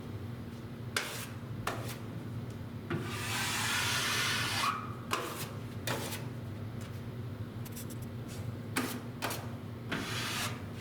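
Drywall knife scraping joint compound over screw heads on drywall: a series of short scraping strokes, with one longer stroke of about two seconds starting about three seconds in.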